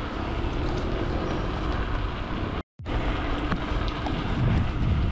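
Wind rumbling on the microphone with road traffic noise while riding a bicycle along a bike lane; the sound cuts out completely for a moment about halfway through.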